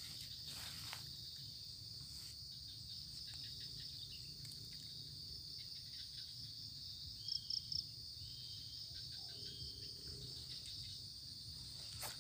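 Steady high-pitched drone of insects in swampy grassland, with three short, louder high chirps about seven seconds in.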